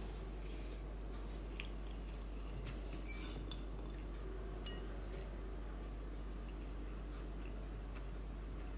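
Metal fork clinking and scraping against a ceramic bowl, one short clatter about three seconds in with a few faint ticks around it, otherwise quiet room tone.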